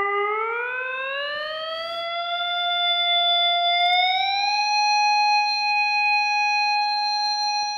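Haken Continuum playing a sustained EaganMatrix BiqMode (biquad filter-bank modal) tone. The tone glides up in pitch as the finger slides up the playing surface: it rises over the first two seconds, climbs a little more about four seconds in, then holds until it stops near the end. Its even harmonics fade as it climbs, because scaled offsets pull down the even mode amplitudes above the middle of the fingerboard.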